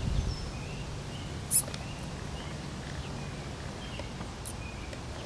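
Outdoor yard ambience: a steady low background hum with faint, scattered bird chirps. A brief sharp high-pitched squeak or click about a second and a half in, and a fainter one later on.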